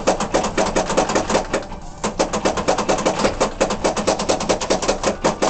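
Williams Earthshaker pinball machine clicking rapidly, about nine sharp clicks a second, with a short break about two seconds in.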